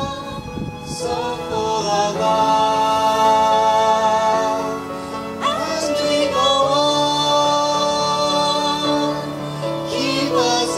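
A man and a woman singing a duet in harmony into handheld microphones, amplified, holding long sustained notes.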